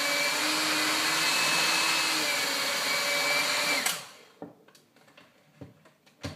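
Electric hand mixer running steadily, its twin beaters whipping egg yolks and sugar in a bowl, then switched off about four seconds in. A few light knocks follow.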